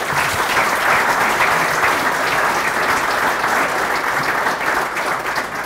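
Seated audience applauding, a dense, steady round of clapping that starts right away and begins to ease off near the end.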